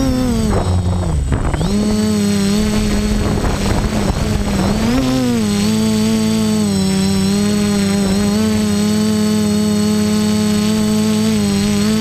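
Quadcopter's electric motors and propellers buzzing, heard from the camera on board. The pitch dips and rises with throttle changes in the first five seconds, with a rush of air noise, then holds a steady drone.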